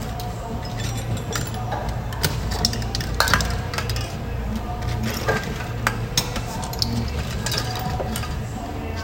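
Irregular metallic clicks and clinks of hand tools being handled, over a low steady hum.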